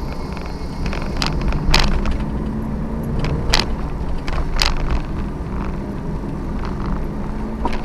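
Suzuki Every kei van on the move: steady low engine and road rumble with a constant hum, and light clicks or rattles at irregular moments, about half a dozen times.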